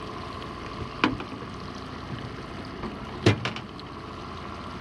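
Boat's outboard motor running steadily while trolling, with two sharp knocks of gear against the boat, one about a second in and a louder one about three seconds in.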